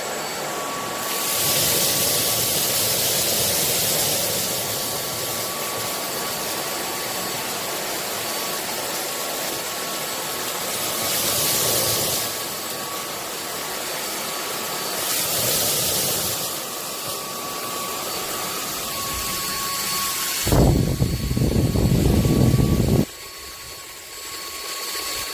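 Zeus cordless vacuum cleaner running steadily: a high motor whine over rushing air that swells several times. About twenty seconds in a louder, rough, low rumble lasts about two and a half seconds, then the running sound drops back quieter.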